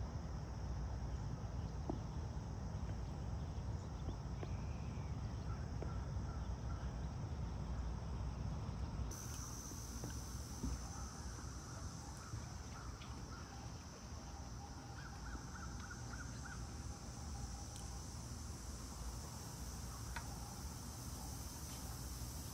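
Quiet outdoor dawn ambience: a steady high insect drone with a few faint, distant bird calls, over a low rumble of wind. The high drone grows louder about nine seconds in.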